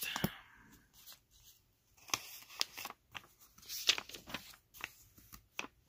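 Pages of a Bible being turned by hand: a series of short paper rustles and soft ticks at irregular intervals.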